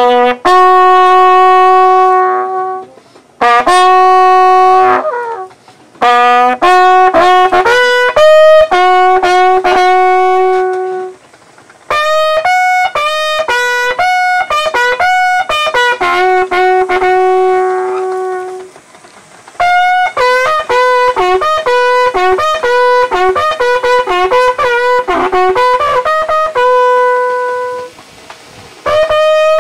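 A military bugle sounding a slow funeral call as a last salute at a soldier's burial. It plays long held notes in phrases, with several short breaks for breath between them.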